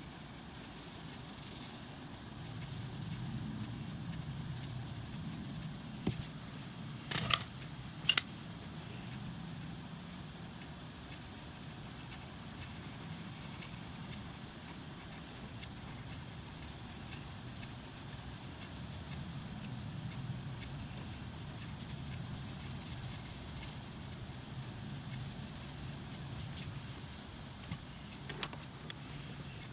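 Coloured pencils scratching softly and steadily across a colouring-book page, with a few sharp clicks about seven to eight seconds in and again near the end.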